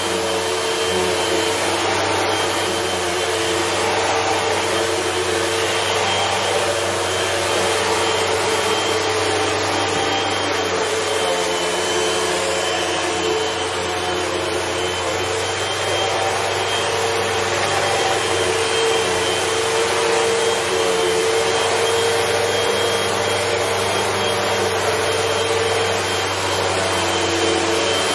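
Bagless upright vacuum cleaner running steadily as it is pushed back and forth over a woven runner rug: a constant motor tone over the rush of suction air, swelling and easing slightly with the strokes.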